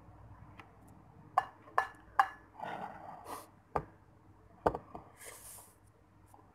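Pink plastic utensil clicking against a ceramic plate three times in quick succession, each click leaving a short ring, then scraping and two more taps as instant noodles are scooped up. A short slurp follows as the noodles are sucked into the mouth.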